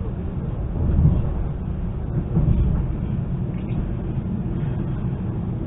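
ЭШ2-001 electric multiple unit running along the track, heard from inside the passenger car: a steady low rumble of wheels and running gear, swelling briefly about a second in and again about two and a half seconds in.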